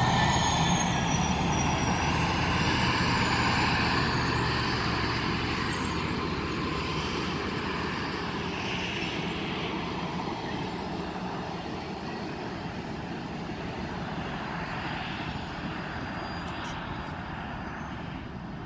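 Passing Union Pacific passenger cars rolling along the track, a steady rumble of wheels on rail that slowly fades as the train moves away.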